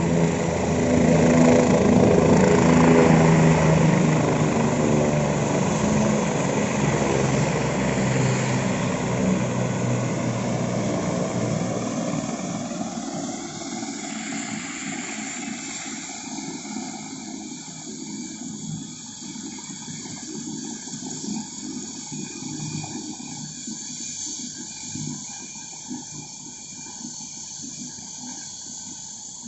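Helicopter running with a steady low drone, loudest a few seconds in and then fading away steadily as it draws off.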